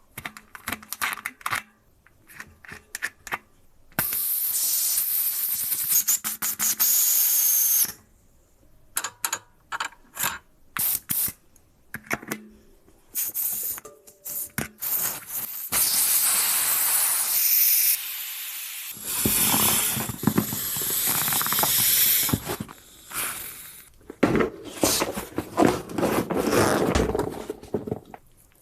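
Several long bursts of spray hissing, each lasting a few seconds, with short clicks and knocks of handling in between.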